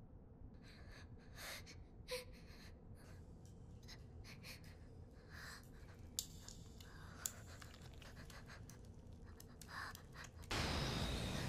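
Quiet anime soundtrack holding faint breaths and a couple of small clicks. About ten and a half seconds in, a louder steady hissing swell comes in.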